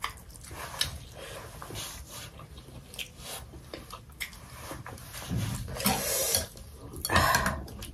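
Close-miked chewing and wet mouth sounds as a mouthful of momo dumpling is eaten, with many soft clicks. About six seconds in and again near the end come two louder, noisier bursts.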